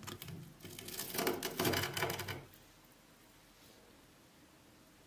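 Knife cutting through the crisp crust of an air-fried polenta piece on a wooden board: a quick run of dry crackling crunches that stops about halfway through.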